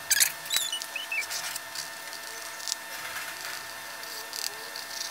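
Pencil scratching on a primed painting board, with small clicks and squeaks in the first second or so, over a steady hum.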